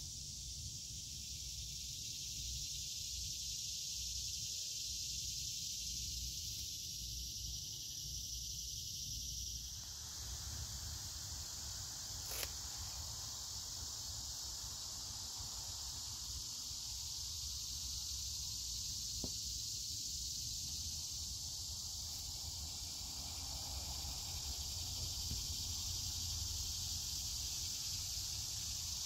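Steady, high, even chirring of a chorus of insects in a summer garden, with a low rumble underneath. A single sharp click comes about twelve seconds in.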